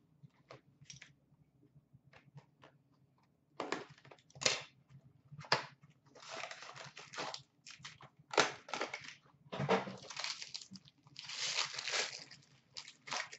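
Plastic wrapper crinkling and tearing and a small cardboard box being handled as a pack of trading cards is opened by hand. The sound comes in irregular rustling bursts, with a short lull about a second in.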